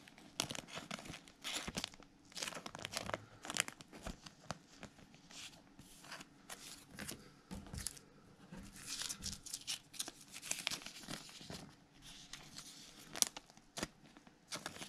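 Thin clear plastic card sleeves crinkling and rustling as trading cards are handled and slid into them, in irregular crackles and small clicks.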